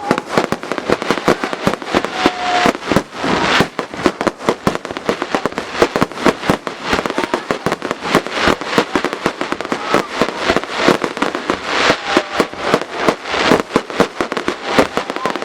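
Fireworks display going off in a dense barrage: rapid sharp bangs several a second, with swells of crackling every few seconds.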